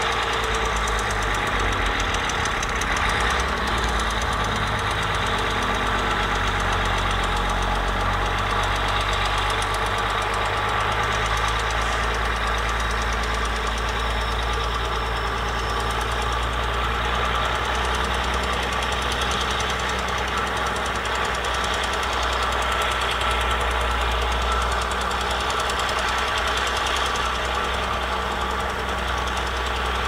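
Small crawler bulldozer's diesel engine running steadily under load as the blade pushes wet soil.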